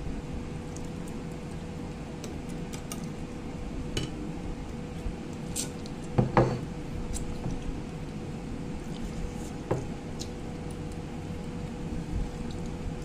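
Eating crab and rice by hand: small clicks of fingers on crab shell and the plate, with wet mouth and chewing sounds and one louder wet mouth sound about six seconds in, over a steady low hum.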